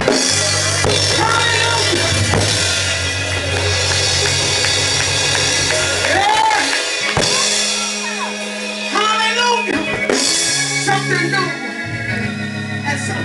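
Live gospel band playing: a drum kit with steady cymbal wash and a keyboard holding long low bass notes that change a few times. A woman's voice sings through a microphone over the band in sliding phrases.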